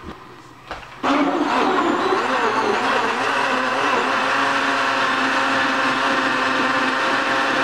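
Hamilton Beach Single Serve blender switched on about a second in, its motor running loudly and steadily. The pitch wavers for the first couple of seconds as the contents churn, then settles.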